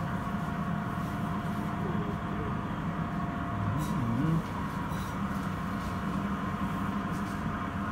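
Steady low machinery hum with a faint steady tone running through it, under faint background voices.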